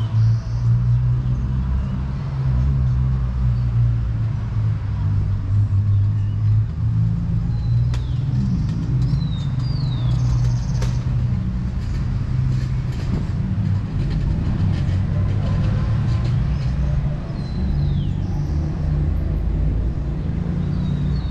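Road traffic: vehicle engines running close by as a steady low hum. A few short, high, falling chirps come through now and then.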